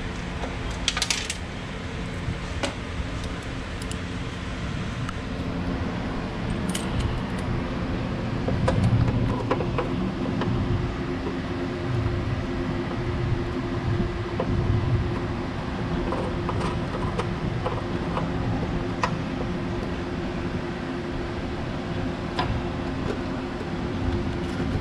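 Small metallic clicks and clinks of a T-handle Allen key working bolts and a metal bracket on a car's inner fender, spaced irregularly over a steady background hum.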